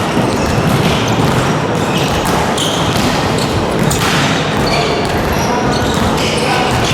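Basketballs bouncing on a gym floor during a rebounding drill, with a steady run of impacts over a busy hall background.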